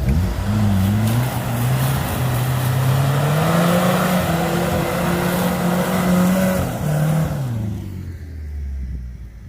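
Small off-road 4x4's engine revving up and held at high revs for several seconds, then dropping off about seven seconds in. A loud rushing noise runs with it and fades as the revs fall.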